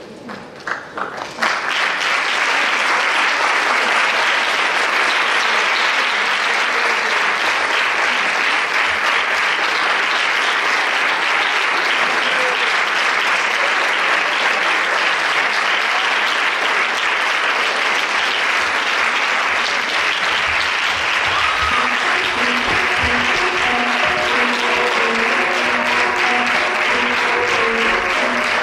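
Theatre audience applauding: a few scattered claps about a second in swell at once into sustained, even applause. Music with repeated notes comes through under the clapping in the last third.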